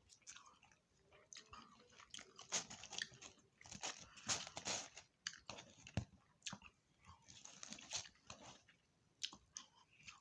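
Chewing and biting on fried fish and tater tots, irregular crunches and wet mouth clicks.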